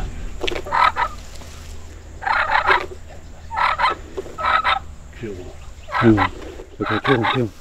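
Osceola wild turkey gobblers gobbling: about six rapid, rattling gobbles in a row, each under a second long.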